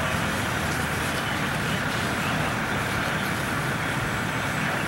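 Steady mechanical drone with a hiss over it: a fire engine's engine running its pump while fire hoses spray water.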